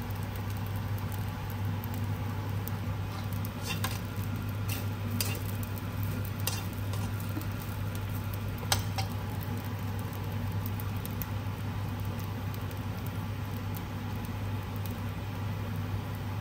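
Fried rice sizzling in a nonstick wok as a slotted spatula stirs and scrapes through it, with a few sharp clicks of the spatula against the pan, the loudest about nine seconds in. A steady low hum runs underneath.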